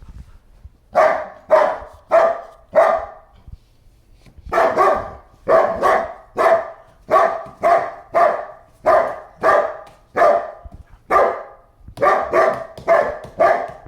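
German Shepherd dog barking: four quick barks, a short pause, then a steady run of barks at about two a second.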